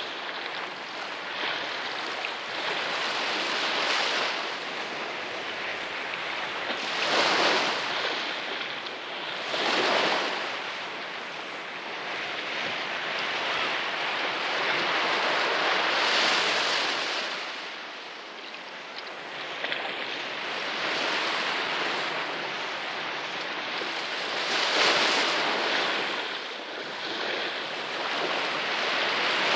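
Ocean surf: waves surging in and washing out every few seconds over a steady hiss of water.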